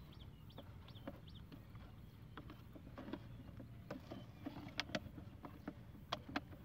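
Plastic bottle and PVC pipe being handled while cord is tied around them: scattered sharp clicks and crinkles that come more often in the second half, over a low wind rumble on the microphone.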